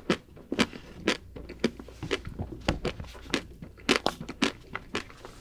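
Close-miked chewing of a chocolate dessert: irregular sharp, crunchy mouth clicks, about two or three a second.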